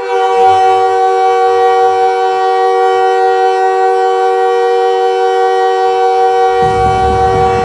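NHL arena goal horn sounding one long, loud, steady blast, a chord of several tones that starts suddenly. Near the end, a low noise joins beneath it.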